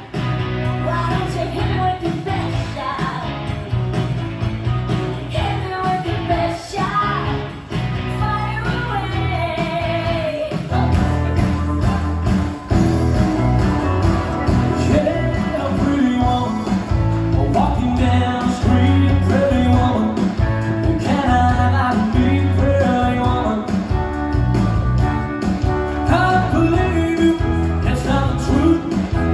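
A recorded pop song with a singer over a steady beat and bass, played for a dance routine. It gets a little fuller and louder about ten seconds in.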